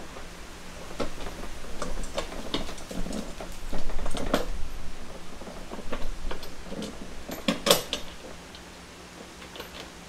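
Scattered metallic clinks, taps and knocks of a steel bolt and washer being fitted through the steel frame of a plastic cart bed while the bed is shifted about, the sharpest clicks about four seconds in and just before eight seconds in.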